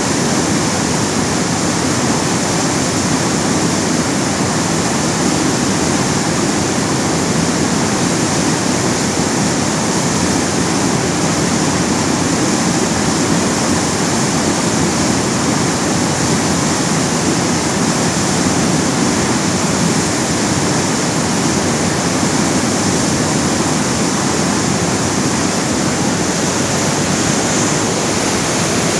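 Steady rushing water, an even roar with no breaks or changes.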